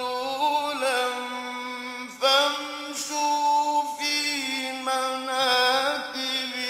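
A solo male voice chanting the Quran in a slow, melodic recitation style, holding long drawn-out notes with ornamented turns; a new phrase starts about two seconds in.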